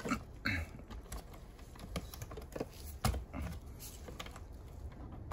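Irregular light plastic clicks and taps, about seven in all, as a small plastic RC car is handled and its parts are fingered.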